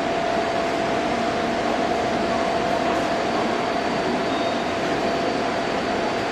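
Taipei Metro C301 subway train standing at the platform with its doors open: a steady mechanical hum of the stationary train and its air-conditioning, with one constant mid-pitched tone.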